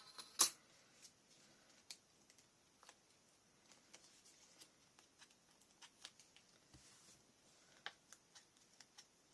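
Paper and small scrapbooking pieces being handled on a work surface: soft scattered taps and rustles, with one sharper click about half a second in.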